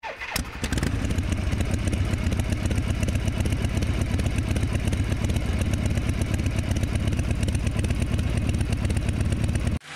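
Triumph Tiger 1200's three-cylinder engine starting up within the first second and then running steadily at idle with a fast, even beat. It cuts off abruptly near the end.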